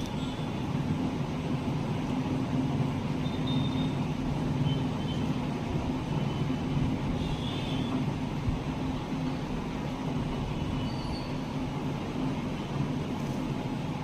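A steady low mechanical hum throughout, with a few faint, short high chirps from caged birds scattered through it.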